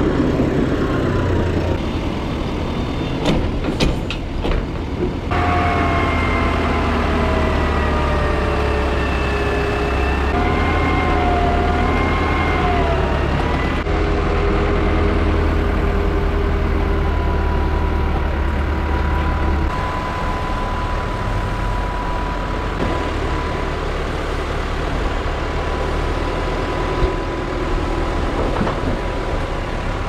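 Tractor diesel engines running steadily, over several cut-together shots, with a whining tone that wavers in pitch for several seconds in the first half.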